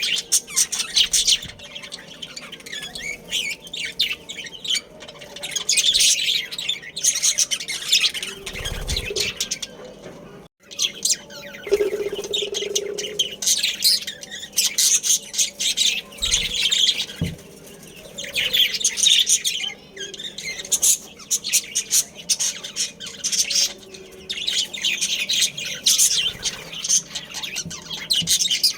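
Budgerigars chirping and chattering in rapid bursts of high chirps a few seconds long, with short lulls between.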